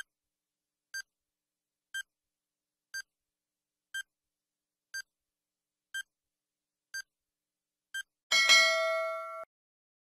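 Quiz countdown-timer sound effect: a short electronic beep once a second, nine times, then a louder time's-up tone of several steady pitches lasting about a second that cuts off suddenly.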